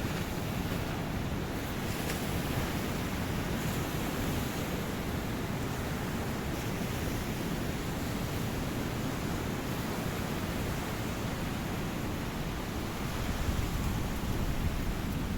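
Ocean surf washing onto a beach: a steady rush of noise that swells slightly near the end.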